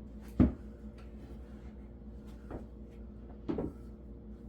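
Wooden flat-pack cabinet parts being handled: one sharp knock about half a second in, then two softer knocks later.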